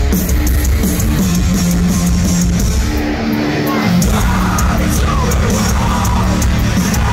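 A metalcore band playing live and loud: distorted electric guitars, bass and a drum kit with crashing cymbals. About three seconds in, the bass and drums drop out for roughly a second, leaving the guitar line alone. Then the full band comes crashing back in.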